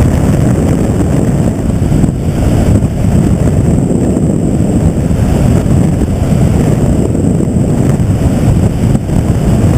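Loud, steady low rumble of wind buffeting the microphone over engine noise.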